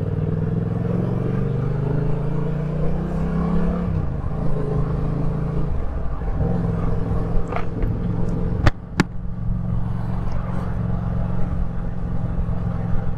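Yamaha MT-07's parallel-twin engine running on the move, its pitch rising slowly for about four seconds and then dropping before it settles into steady running. Two sharp clicks come about nine seconds in.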